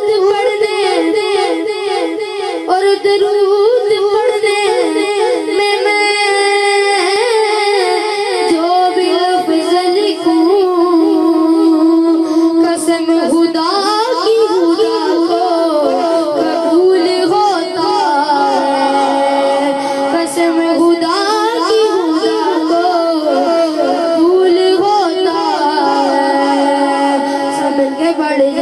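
A boy singing a naat, an Urdu devotional poem, solo into a handheld microphone in a high voice, with continuous, wavering, ornamented melodic lines.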